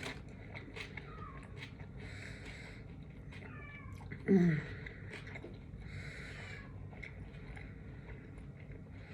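House cat meowing: faint short calls and one louder, falling meow about four seconds in, with soft clicks and rustles between.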